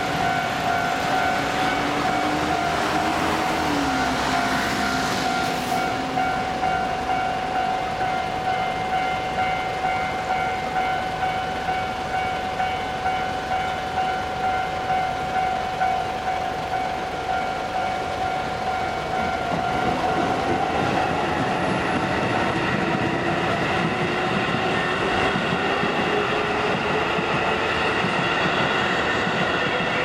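A Japanese level-crossing warning bell rings on and on with a steady electronic tone. About two-thirds of the way through, a Keisei Oshiage Line commuter train arrives and crosses, its motors whining upward in pitch over wheel and rail noise.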